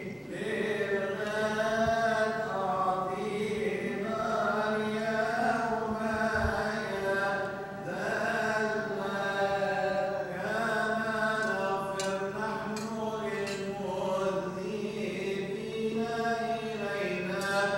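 Coptic Orthodox liturgical chant: voices sing a continuous melody of long, slowly winding notes. A few light clicks fall in the second half.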